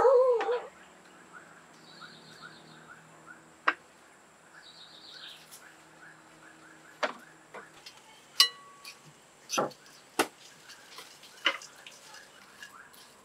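Clay dishes and a spoon knocking and clinking against a ceramic mixing bowl as a salad is tossed: a run of separate sharp knocks, one ringing clink about eight seconds in. A steady faint chirping, a few chirps a second, runs behind, and a dog's bark dies away right at the start.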